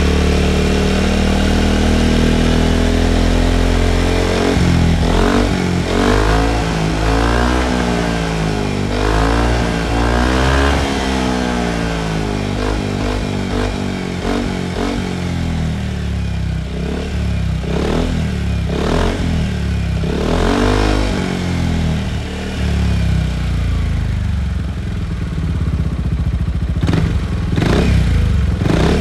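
Yamaha XMAX 250 scooter's single-cylinder four-stroke engine running through a Krace aftermarket exhaust, revved in place. It runs steadily for a few seconds. Then comes a quick run of throttle blips, the pitch rising and falling several times in a row. After that there are a few more separate blips, two of them near the end.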